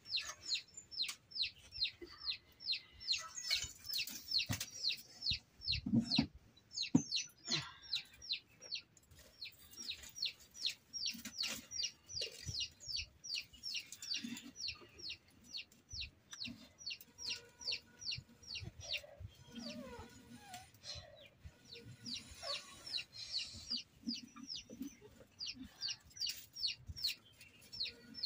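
A chicken chick peeping over and over, short high cheeps falling in pitch, several a second. Around six seconds in come a few knocks of dry firewood sticks being fed into a mud stove.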